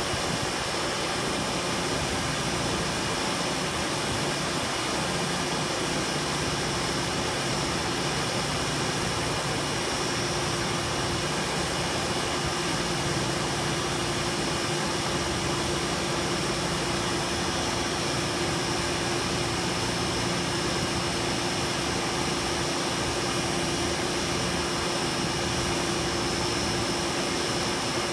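Large drum fan running steadily: a constant rush of air with a steady motor hum and a few fixed whining tones.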